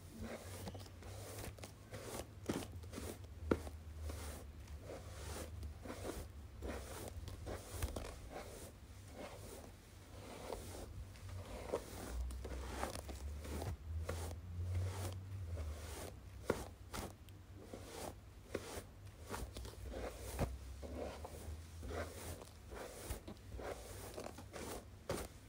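Hairbrush bristles brushed over the microphone: close scratching and crackling with many small irregular clicks and a low handling rumble.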